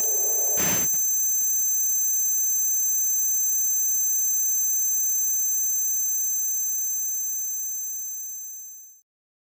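A few sharp hits in the first second, then a steady, high-pitched electronic tone made of several pitches sounding together, fading away and cutting off about nine seconds in.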